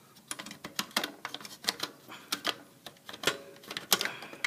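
Irregular metallic clicks and taps, several a second, from a sheet-metal electrical disconnect box being handled as its disconnect is put back on.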